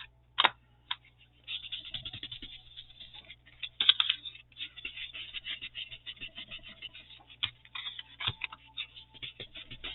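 Rapid light tapping and scratching, as an ink pad is dabbed onto a rubber stamp to ink it up, after a few separate clicks at the start.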